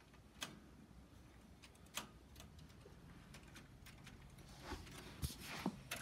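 Faint, scattered clicks from a Smith Corona manual typewriter's keys and typebars being worked: a sharp one about half a second in, another about two seconds in, and a small cluster near the end.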